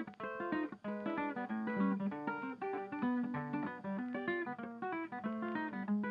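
Background music: fast plucked acoustic guitar, a quick run of picked notes.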